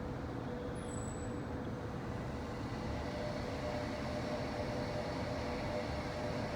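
Walt Disney World Monorail running, heard from inside the cabin: a steady rush of travel noise with a faint motor whine that rises a little about halfway through.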